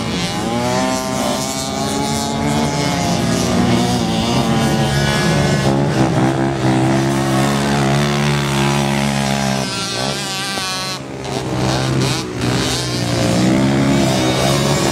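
Racing quad (ATV) engines at full throttle. Their pitch rises and falls as the riders accelerate, shift and back off for the turns, with a brief drop in revs a little after two-thirds of the way through.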